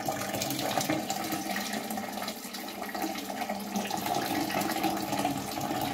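A stream of hot soda-crystal solution pouring steadily from an electric kettle into the standing water of a toilet bowl, splashing as it lands.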